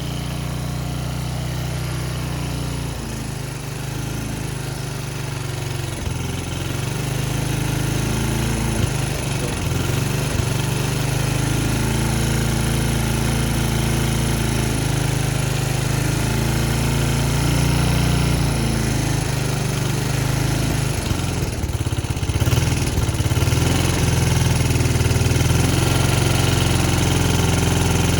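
The bike's engine is idling unevenly, its speed wandering up and down and picking up a little partway through. It is starving for fuel, which the riders suspect comes from a clogged fuel line or a fuel filter that isn't working.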